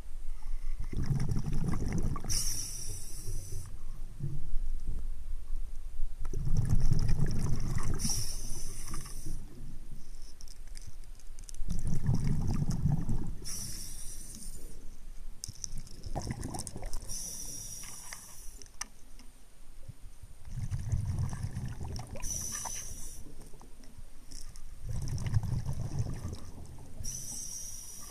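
A scuba diver breathing underwater through a regulator, recorded from close by: about every five seconds a two-to-three-second rumble of exhaled bubbles, ending in a short high hiss as the diver breathes in.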